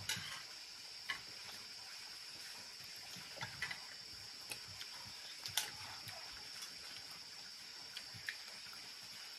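Spoons clinking and scraping against plates and a steel bowl during a meal: a handful of faint, scattered clicks over a steady high-pitched hiss.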